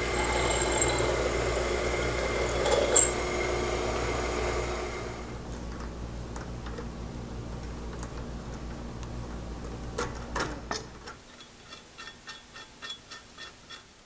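Bench drill press running and drilling a clearance hole through a metal plate, the bit cutting for the first few seconds with a sharp click about three seconds in. The motor then runs on more quietly and stops about eleven seconds in, followed by a series of light metallic clicks.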